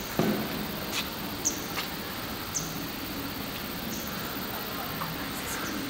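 Outdoor ambience: a steady background hum with a few short, high bird chirps, about three over several seconds.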